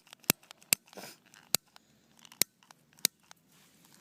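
A lighter being flicked again and again without catching: a series of sharp single clicks at irregular gaps of about half a second to a second, with a brief rustle about a second in.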